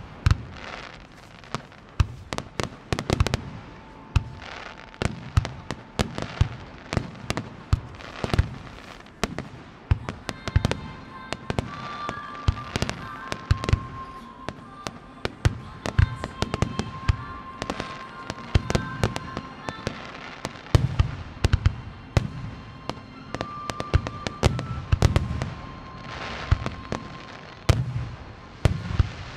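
Japanese aerial firework shells bursting in a finale barrage: a continuous run of sharp bangs and booms, often more than one a second. From about ten seconds in, sustained musical notes play underneath.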